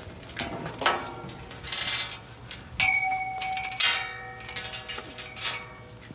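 Metal yard gate being shut: a series of clanks and rattles, with one strike about three seconds in that rings out for about a second.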